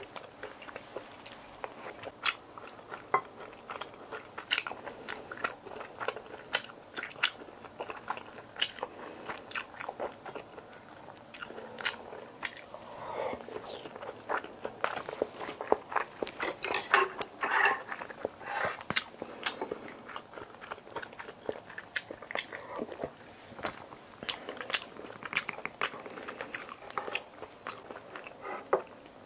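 Close-miked eating of a Korean home-cooked meal: continuous chewing with many short, sharp clicks, busiest about halfway through.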